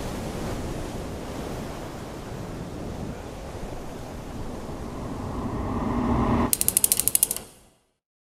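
Sea surf and wind noise, swelling with a faint rising tone, then cut off by a rapid run of about a dozen loud, sharp clicks, roughly twelve a second, that end abruptly in silence.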